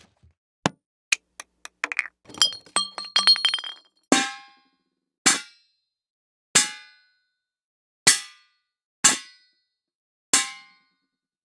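A run of separate impact sound effects: a few faint short knocks, a brief metallic jangling rattle, then six single metallic clangs about a second apart, each ringing out briefly.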